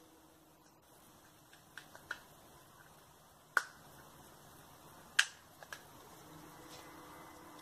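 A handful of sharp clicks, the two loudest about three and a half and five seconds in, over a faint background. Near the end a low, droning trumpet-like hum in the sky fades back in.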